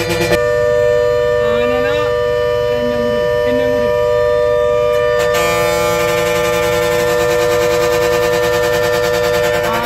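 Bus air horn sounding one long continuous blast, with a fuller, second horn tone joining about five seconds in: the bus is honking to drive a wild elephant off the road.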